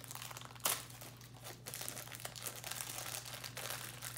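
Small pink plastic blind-bag wrapper from an L.O.L. Surprise doll being crinkled and picked open by hand: a continuous run of fine crackles, with one sharper crackle under a second in.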